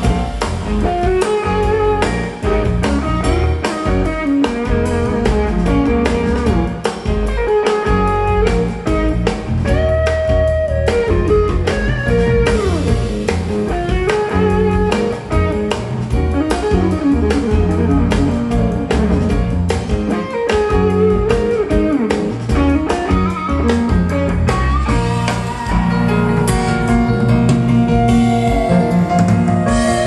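Guitar-led band music with drums and bass, played back through a pair of Yamaha NS-C150 centre-channel speakers set upright as stereo speakers, with a Yamaha subwoofer filling the bass, heard in the room.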